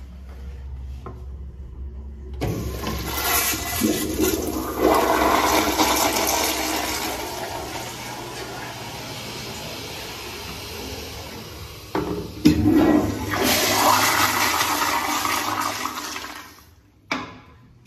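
A commercial flush-valve (flushometer) toilet flushing: a strong rush of water starts a couple of seconds in and runs for about ten seconds. About twelve seconds in there are two sharp clacks, then a second strong surge of rushing water that dies away shortly before the end.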